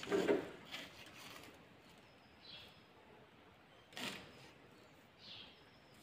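Faint handling noise of wires and a soldering iron at a potentiometer's lugs: a knock at the start and a sharp click about four seconds in. A few faint high chirps sound in the background.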